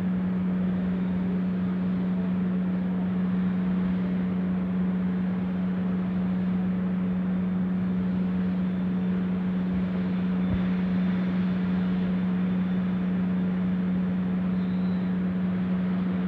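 A steady machine hum holding one low pitch, with an even hiss above it.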